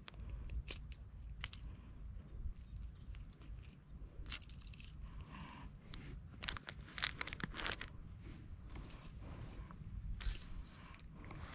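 Handling noise in dry grass: rustling and crunching of grass stems with scattered small clicks and scrapes as a caught bass and its lure are handled, over a low steady rumble.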